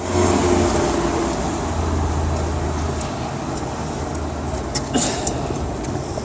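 City street traffic noise: a steady low engine rumble under road hiss, with a short sharp sound about five seconds in.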